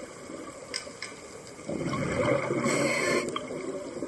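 Scuba diver breathing through a regulator underwater: exhaled bubbles burbling from a little under two seconds in, with the hiss of an inhalation near the end.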